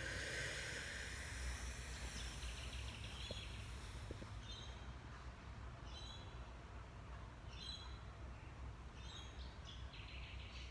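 A person drawing one long, slow deep breath, heard as a soft hiss for about the first four and a half seconds, as part of a breathing technique to stop hiccups. After it, a few short bird chirps are heard against faint background noise.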